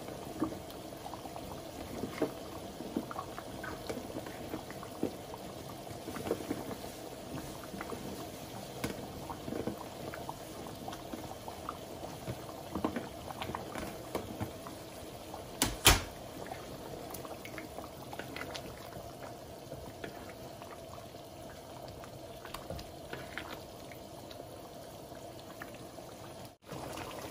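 Pot of tomato-based beef ragu simmering on a gas burner, bubbling steadily with many small irregular pops as potato chunks are dropped in and moved with a wooden spoon. One sharp knock a little past halfway.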